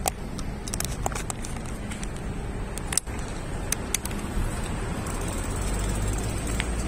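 Street traffic: a car approaches and drives past close by, its low tyre-and-engine rumble swelling from about halfway through to the end. A few short sharp clicks come through the first half.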